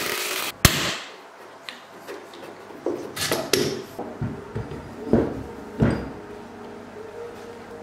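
A Makita cordless impact driver runs briefly and stops about half a second in, followed by one sharp knock. After that come about six scattered knocks and clunks as a cast-iron bench vise and wooden blocks are handled on the bench.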